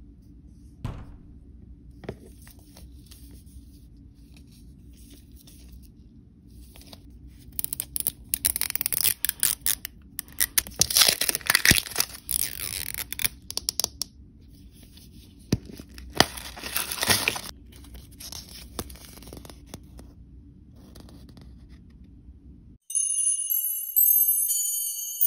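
Clear plastic wrap being torn and peeled off a toy ball, crinkling loudly in two long stretches, the second shorter. A chiming music tune begins near the end.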